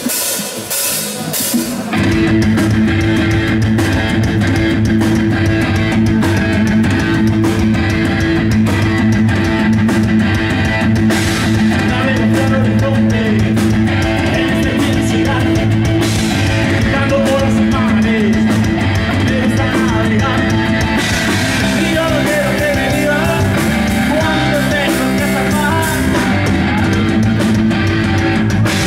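Rock trio playing live: electric guitar, electric bass and drum kit, with the full band coming in about two seconds in and playing on steadily.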